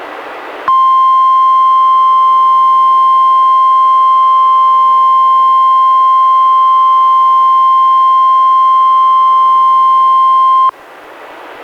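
NOAA Weather Radio 1050 Hz warning alarm tone, sounded as a test: one steady high tone that switches on a little under a second in, holds for about ten seconds and cuts off abruptly. A hiss from the weather-radio receiver comes before and after it.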